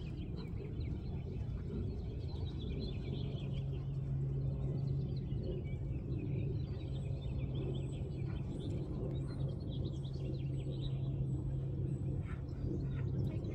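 Outdoor ambience: small birds chirping over a steady low hum, with a constant low rumble of background noise.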